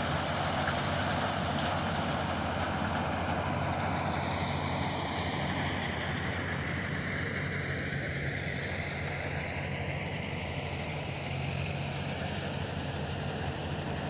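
Combine harvester running steadily while harvesting wheat: a continuous low engine drone with a broad rushing noise over it.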